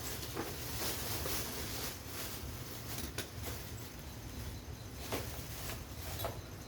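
A handful of light, scattered clicks and taps of small parts being handled, over a steady low hum.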